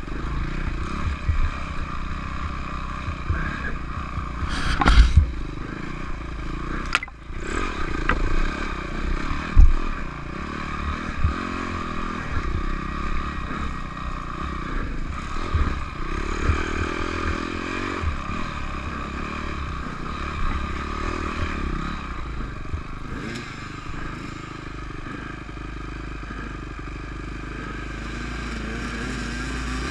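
Dirt bike engine running, its revs rising and falling as it is ridden over a rough trail, with sharp knocks and clatter as the bike jolts over the ground, loudest about five and ten seconds in.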